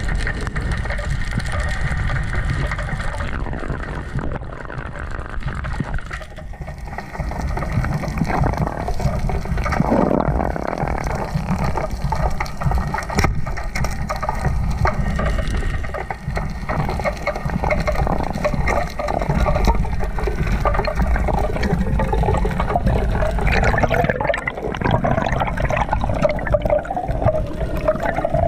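Underwater sound through an action camera's waterproof housing: a continuous muffled rush of moving water with gurgling.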